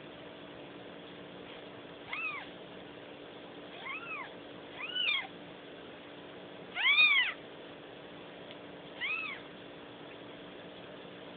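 Newborn kitten mewing: five short, high-pitched calls that rise and fall in pitch, a second or two apart. The fourth is the loudest and longest.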